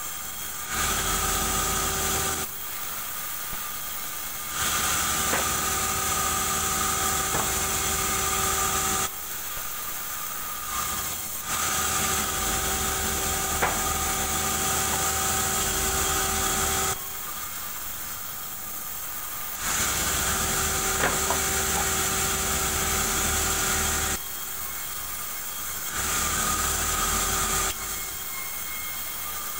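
Vertical band sawmill cutting durian wood. The noise swells for a few seconds during each pass of the slab through the blade, about five passes, and between passes it drops back to the steady running of the saw.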